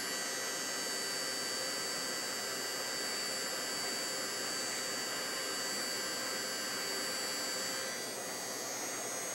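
Handheld electric heat gun running steadily, its fan blowing with a rush of air and a steady whine, as it shrinks heat-shrink tubing over wire leads. It gets a little quieter about eight seconds in.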